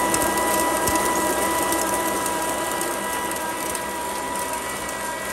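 Belt-driven cast-iron corn grinding mill running under load as maize kernels pour into its feed throat, with a steady mechanical din and a constant high whine.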